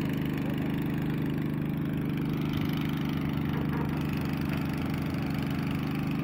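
F15 crane's diesel engine running steadily at a constant low speed while the crane holds an 8-ton concrete chamber on its ropes.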